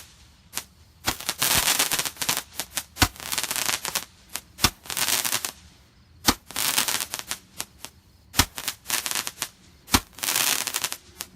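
Crackle-effect 10-ball Roman candle firing: a sharp pop every second or two as each ball launches, each followed by about a second of dense crackling.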